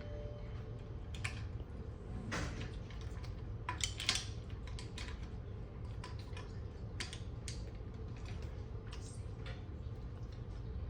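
Irregular clicks and clinks of mussel shells and cutlery being handled while eating, a little louder about two and four seconds in, over a steady low hum.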